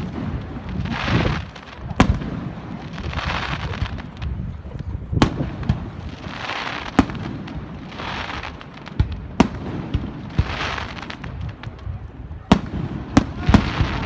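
Fireworks display: aerial shells going off in sharp bangs every one to three seconds, with short stretches of hissing crackle between them. The bangs come closer together near the end.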